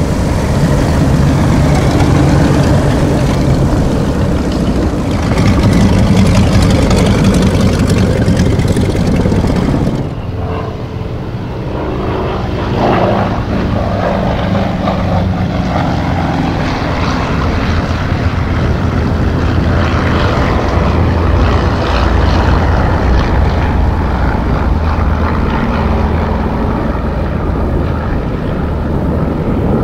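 Piston engines of propeller aircraft running steadily. First a twin-engine Piper PA-23-250 Aztec taxiing with both propellers turning; about ten seconds in the sound changes abruptly, and near the end Yak-52 trainers lift off in formation under full power.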